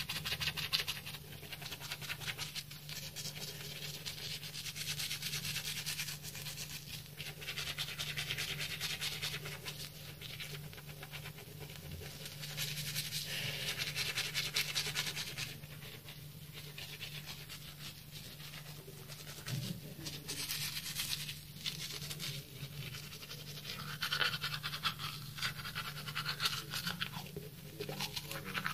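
Toothbrush scrubbing teeth through toothpaste foam, in stretches of brisk, scratchy brushing with short lulls between them.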